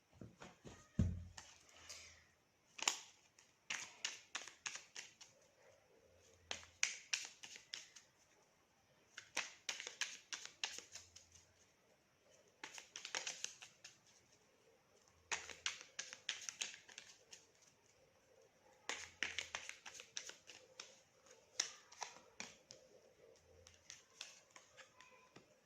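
A deck of tarot cards being shuffled by hand: short runs of quick, papery clicks and slaps, about seven bursts of one to two seconds each, with brief pauses between them.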